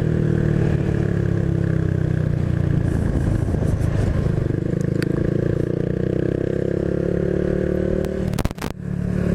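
Honda Biz 125's single-cylinder four-stroke engine running under way with wind rush, its pitch easing down at first and then slowly climbing as it picks up speed. Near the end the engine note briefly drops, with a few sharp clicks.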